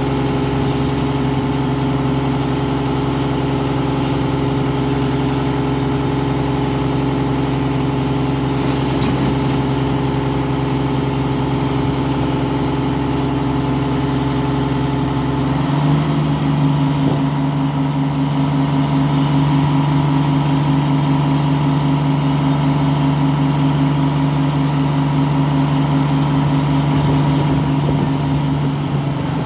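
Diesel engine of a truck-mounted crane running steadily. About halfway through it steps up to a slightly higher, louder speed and holds it until near the end, the engine throttled up to work the crane while the load is lowered.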